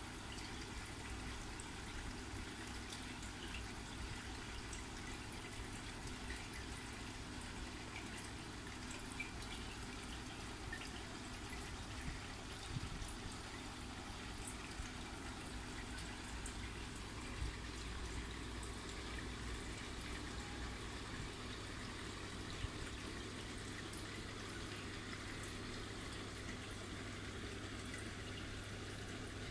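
Steady trickle of aquarium water over a constant low hum, with a few faint ticks.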